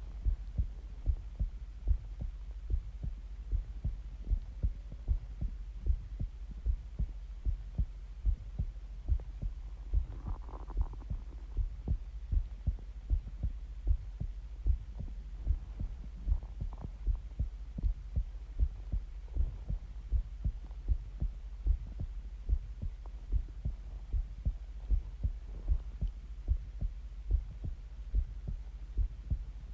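Human heartbeat heard close up: a steady, even run of low thumps over a constant low hum.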